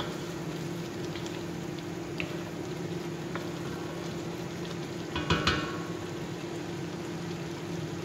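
Chicken pieces simmering and bubbling in a soy and fish sauce glaze in a wok, stirred with a wooden spatula, over a steady low hum. The spatula clatters against the wok a few times about five seconds in.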